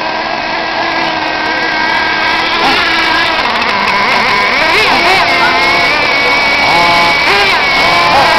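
Small nitro engine of an RC monster truck idling, with a couple of short revs that swing the pitch up and back down about halfway through and again near the end.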